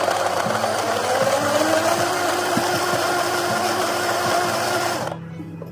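Countertop blender motor running at full speed, its pitch rising slightly, then cutting off suddenly about five seconds in. Soft background music plays underneath.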